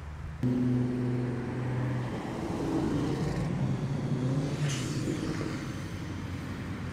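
A car engine pulling away at low revs: a steady drone that starts suddenly about half a second in, its pitch wavering as the car drives off, with a brief hiss near the five-second mark.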